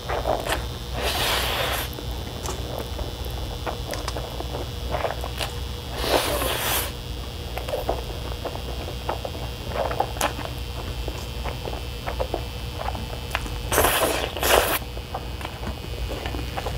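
Close-up slurping of Chapaguri instant noodles, three long noisy pulls: about a second in, about six seconds in, and a double one near the end. Wet chewing and small mouth clicks fill the gaps.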